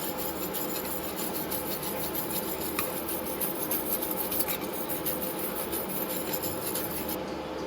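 TIG welding arc on thin-wall titanium exhaust tubing: a steady, high crackling hiss that cuts off abruptly near the end, over a steady machine hum.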